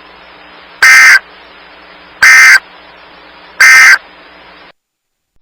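Three short, loud bursts of Emergency Alert System digital data tones, the warbling SAME end-of-message code, about a second apart over a faint steady hum.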